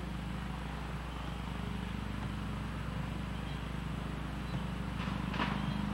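Steady outdoor ambience with insects chirping, over a constant low hum. A brief high squeak comes about five seconds in.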